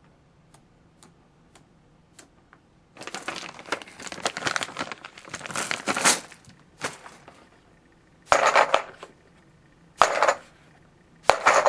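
Crinkling and rustling handling noise: a few faint ticks, then about four seconds of dense crinkling, followed by three short crinkly bursts in the last few seconds.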